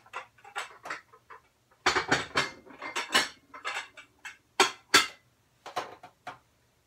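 Ceramic dishes clinking and knocking as they are handled and set down on a cupboard shelf: an irregular run of clinks, with two sharper ones a little past the middle.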